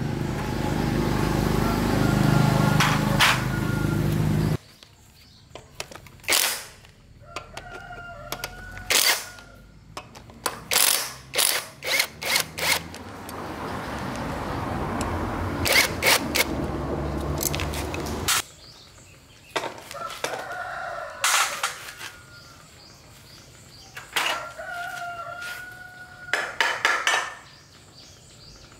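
A rooster crowing several times, among sharp clicks and knocks. A loud steady noise runs at the start and again through the middle, each time cutting off suddenly.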